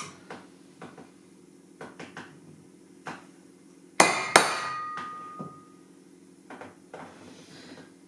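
Two hammer blows on a centre punch, about a third of a second apart, marking a drill hole in a metal bracket; the metal rings on briefly after them. Light clicks and taps of the punch being set on the metal before and after.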